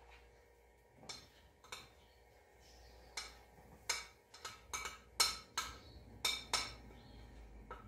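Metal utensil clinking and scraping against a ceramic plate as chopped banana is pushed off it into a pot: about a dozen sharp taps, coming faster from about three seconds in.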